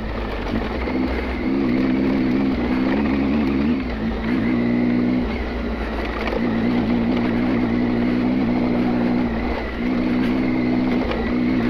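Triumph Tiger adventure motorcycle's three-cylinder engine running at a steady throttle while riding. The engine note eases off briefly about five seconds in and again near ten seconds.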